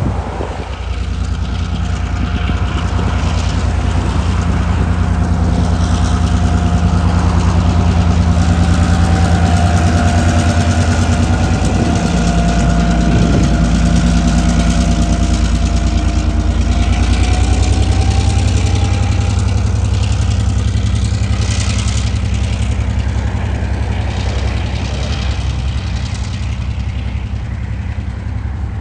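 Two TasRail TR class diesel locomotives passing slowly at about 30 km/h, their engines giving a loud deep drone with a steady whine that peaks as they go by. In the second half the empty coal wagons roll past with wheel and wagon clatter.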